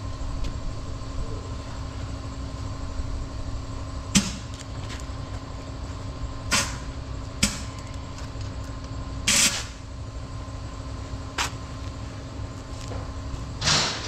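About six short hisses as something is sprayed into the gap between a truck tyre's bead and its rim, the ones near the middle and at the end a little longer. A steady low hum runs underneath.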